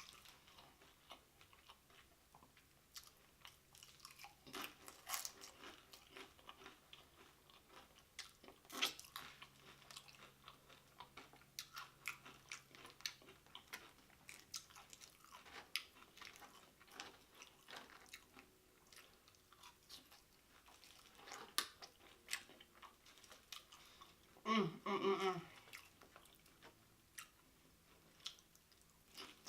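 Tortilla chips of loaded nachos being bitten and chewed close to the microphone, with irregular crisp crunches. A brief voiced sound comes from the eater near the end.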